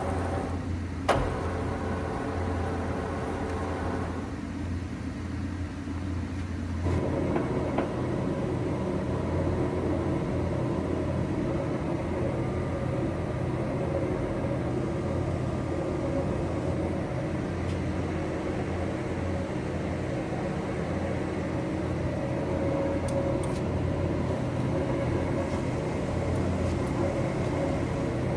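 Large 1980 Leopoldo Pontiggia SFE/CC 950 center lathe running, a steady machine hum with a sharp click about a second in; about seven seconds in the running noise grows fuller and louder and then holds steady.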